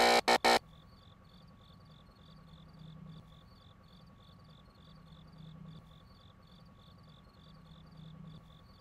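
A few short, loud buzzing bursts in the first half second, then faint cricket chirping, about three chirps a second, steady and regular.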